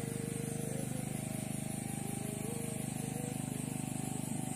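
An engine running steadily at idle, with a fast even pulse.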